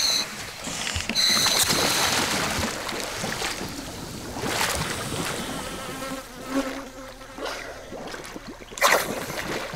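Water splashing and churning around a scuba diver slipping under the surface of a shallow river. A high buzzing whine sounds in the first two seconds, and a brief loud rush of noise comes near the end.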